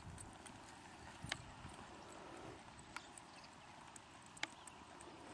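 Faint hoofbeats of a mare loping on the soft, sandy footing of a dirt arena, over a steady background hiss. A few sharp clicks come about a second and a half apart.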